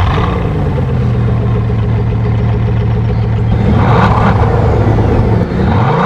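Bugatti Veyron Grand Sport Vitesse's quad-turbo W16 engine just after start-up, its first flare settling into a steady idle, with two short rises in revs about four and five and a half seconds in.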